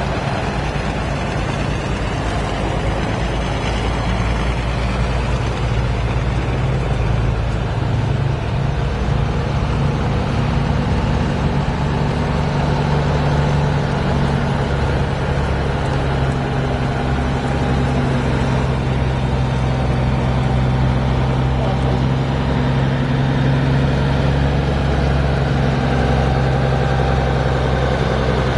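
Truck engine running at low speed, steady, with its engine note growing stronger about twelve seconds in.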